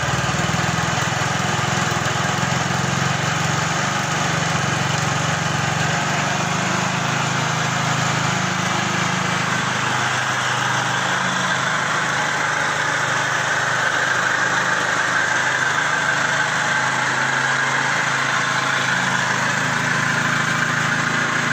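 Scooter engine idling steadily.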